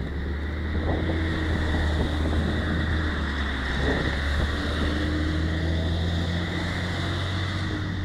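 Road traffic running past on a busy road, mixed with wind rumbling on the microphone; the steady engine drone swells about a second in and holds.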